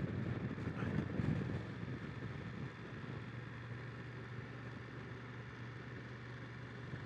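A 2020 BMW F900XR's 895 cc liquid-cooled parallel-twin engine running as the bike rides at about 25–30 mph, with a steady low hum. It is louder for the first two and a half seconds, then eases to a quieter, even level.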